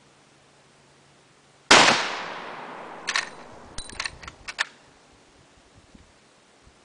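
A single shot from a Marlin 1895 Guide Gun lever-action rifle in .45-70, very loud, with a long echoing tail. A second or two later comes a quick run of sharp metallic clicks as the lever is worked to eject the spent case and chamber the next round.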